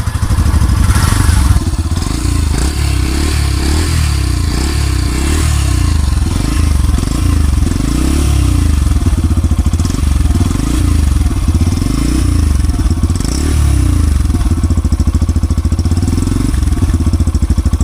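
Yamaha FZ S FI V3's 149cc single-cylinder engine running steadily at idle, its exhaust giving a regular, even beat.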